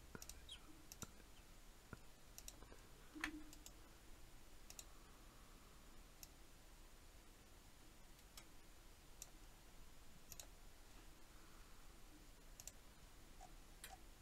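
Faint computer mouse clicks, a dozen or so scattered a second or more apart, over quiet room tone.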